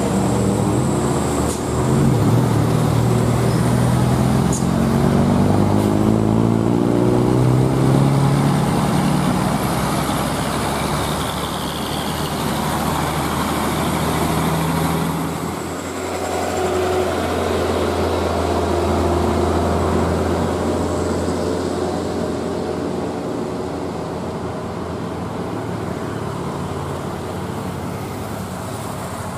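Old diesel truck engine labouring uphill under load, as on an old Mercedes-Benz LP-series truck, its note rising and falling as it pulls and passes close by. About halfway through, the sound changes to a steadier low engine drone that slowly fades.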